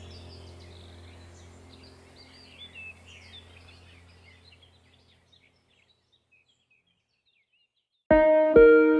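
Birdsong ambience of many short chirps over a low steady hum, fading out over about five seconds to silence. Plucked guitar music starts near the end.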